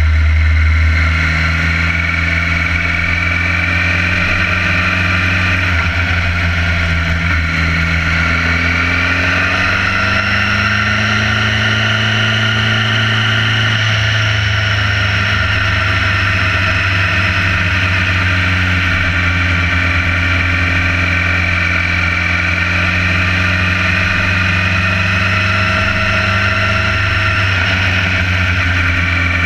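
Motorcycle engine running steadily under way, heard close up from a camera mounted on the bike. The note climbs gently in the middle, drops back about halfway through, and rises a little again near the end.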